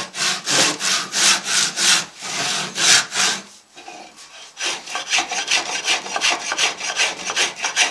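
Handsaw cutting through a wooden guitar body blank in steady back-and-forth strokes, about three a second. After a short pause about four seconds in, a small block plane shaves the wood in quicker, shorter strokes.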